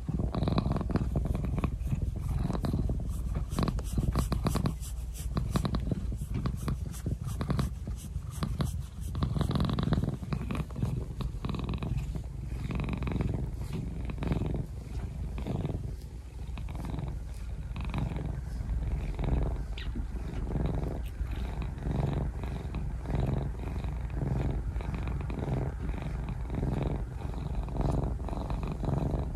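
Brown tabby cat purring close to the microphone, a steady low rumble that goes on without a break.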